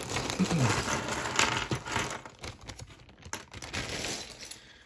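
A plastic zip-lock bag crinkling as a pile of LEGO minifigures and parts is tipped out onto a table, the small plastic pieces clattering against each other. The clatter is dense for about two seconds, then thins out to a few scattered clicks.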